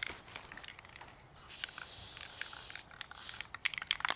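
Aerosol spray-paint can hissing in a few bursts, with short pauses between them and some light clicks and crackles.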